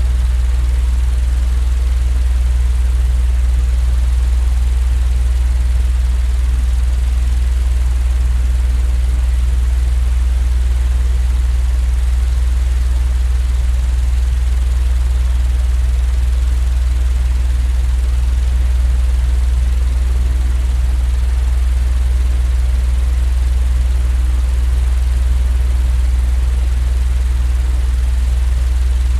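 Electric fan running steadily: a deep, unchanging hum with an even hiss of moving air above it.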